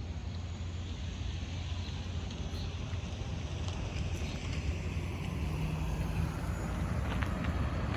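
Jet airliner on approach to land, its engine noise a low rumble that slowly grows louder, with a faint falling whine higher up.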